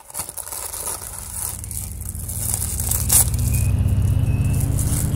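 Plastic wrapping crinkling and rustling as frozen waffles are pulled out of their box, with a sharp click about three seconds in. Under it is a low steady hum that gets louder about halfway through.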